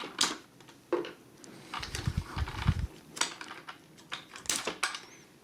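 Hard plastic toy parts being handled: a few scattered sharp clicks and knocks as the plug-on weapons are pulled off the remote-control Bumblebee figure's fists, with a dull rubbing sound in the middle.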